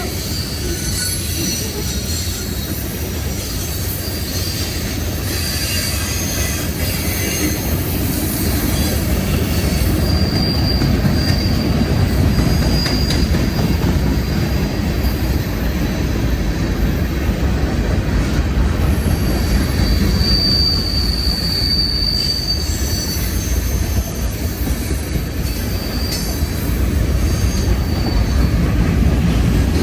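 CSX freight train rolling past at close range: a steady rumble of steel wheels on the rails, with high thin wheel squeals that come and go, loudest about a third of the way in and again about two thirds in.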